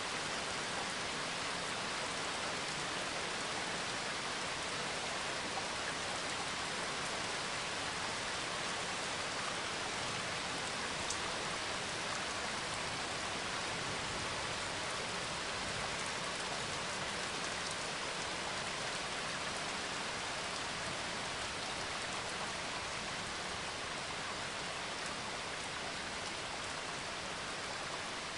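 Steady, even rain-like hiss.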